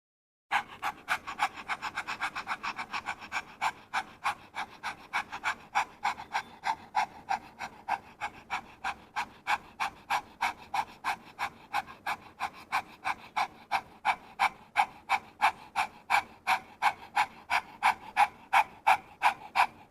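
A woman panting rapidly through her open mouth with her tongue stretched out, about three quick breaths a second: the yoga 'dog breathing' exercise.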